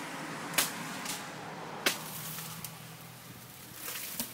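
Two sharp clicks about a second and a quarter apart over a faint, low, steady hum.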